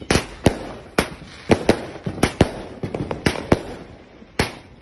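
Multi-shot fireworks cake firing: a rapid, uneven string of sharp bangs, about two or three a second.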